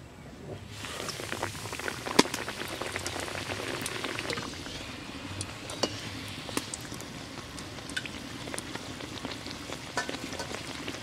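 Mughlai paratha deep-frying in hot oil in a wok: a steady sizzle that starts about a second in as the paratha goes into the oil, full of sharp crackles and pops.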